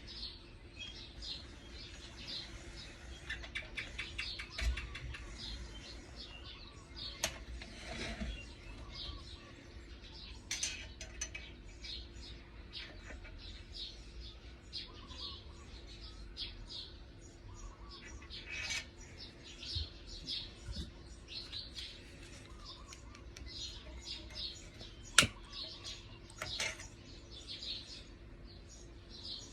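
Birds chirping on and off, short high calls, over a faint steady low hum. Near the end a single sharp click stands out.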